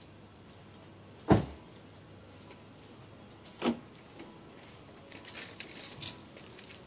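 Creaking from a car's right front wheel and suspension area, a rocking-chair-like creak: one sharp creak about a second in, a second shorter one about two seconds later, and a few faint clicks near the end.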